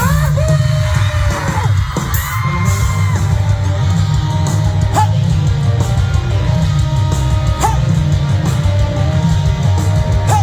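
Live rock band playing a song's instrumental intro with a heavy, pulsing bass. Fans yell and cheer a couple of times in the first few seconds.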